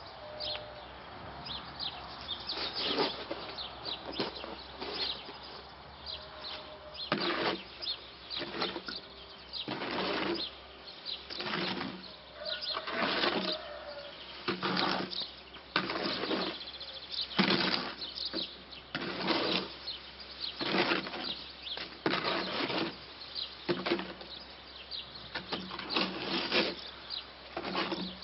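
Shovel scraping and turning concrete mix in a wheelbarrow, a rough scrape about every second and a half to two seconds as the mix is worked by hand.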